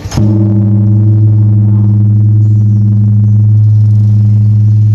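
Large bronze bell, about five tons, struck once right at the start and then ringing on with a loud, steady deep hum and several overtones that barely fade.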